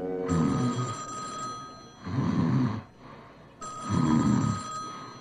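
Cartoon telephone bell ringing twice, the rings about three seconds apart, with a man's low snores between and under them.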